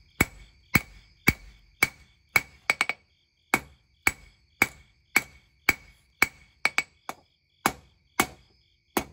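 Blacksmith's hand hammer striking hot leaf-spring steel on an anvil, about two blows a second with a couple of quick double taps, each blow ringing off the anvil: drawing out the tang of a forged knife.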